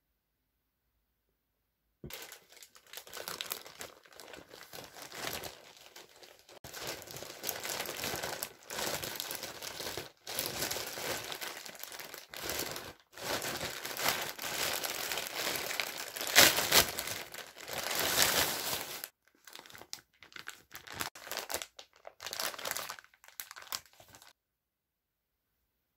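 Plastic poly mailer bag crinkling and rustling as it is pulled and torn open by hand and rummaged through. It starts about two seconds in, is loudest about two-thirds of the way through, and stops a couple of seconds before the end.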